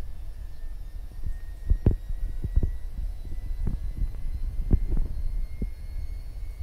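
Low rumble on the microphone with irregular soft thumps, the strongest about two seconds in and again near five seconds.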